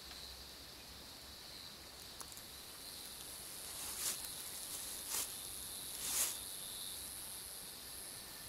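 Night insects chirping in a steady high-pitched drone, with three rustling crunches of footsteps in dry leaf litter about a second apart midway through.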